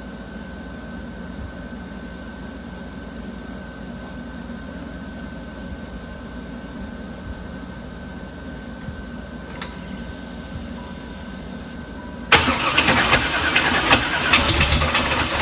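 Small-block Chevy LT1 V8 running, which the owner says has rod knock and another bad noise. For about twelve seconds there is a steady hum with a faint high whine. Then a much louder, rough clattering with rapid knocks starts abruptly.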